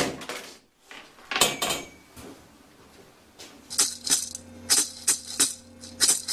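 Background music with shaker-like rattling strokes in a loose rhythm over a low sustained drone, coming in about three and a half seconds in. Before it, two brief rushing noises.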